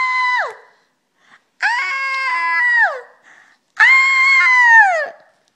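Three long, high wails from one voice, each held on one pitch for more than a second and then sliding down at the end, with a short lower sound under the middle wail.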